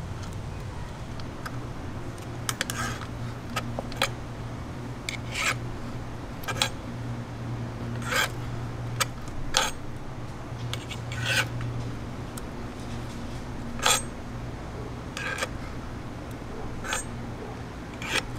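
Metal clinks and scraping as a screwdriver turns a stainless-steel turnbuckle to tension a wire-rope limb riser: irregular sharp clicks about once a second, over a steady low hum.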